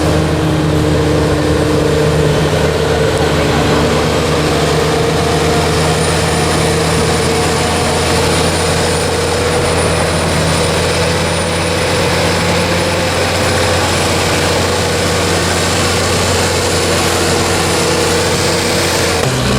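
Bulldozer's diesel engine running steadily under power; near the end its pitch drops briefly, then climbs back up.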